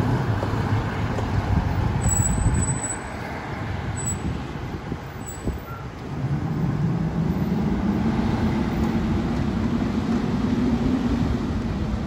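Fire engine's diesel engine running as the truck pulls out and drives off. About six seconds in, the engine note rises as it accelerates, then holds steady.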